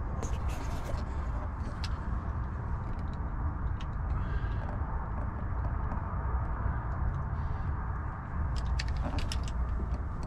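Handling noise on a handheld camera: a steady low rumble with scattered light clicks and scrapes, several of them bunched together near the end.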